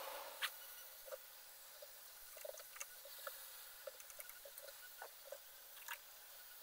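Faint, scattered small clicks and ticks of a hex screwdriver working the screws that hold a 3D printer's extruder to its back plate. A sharper click comes about half a second in.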